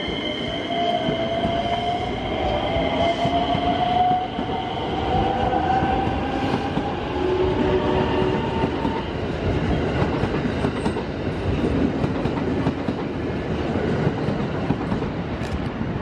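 Electric commuter train running past close by over a steady rumble of wheels on rail, its motors giving a whine that rises in pitch over the first several seconds as the train gathers speed.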